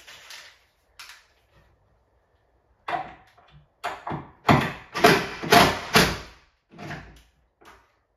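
Cordless drill driver run in short bursts, a couple of quick ones at first and then a longer run of them from about three seconds in, turning the adjustment screws of a kitchen cabinet door hinge that has been making the door bind.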